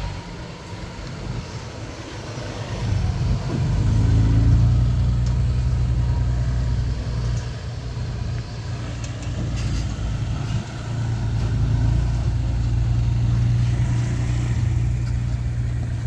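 Diesel engine of heavy earthmoving equipment running steadily. It grows louder about three seconds in, drops briefly near the middle, then builds again, as a machine working under load does.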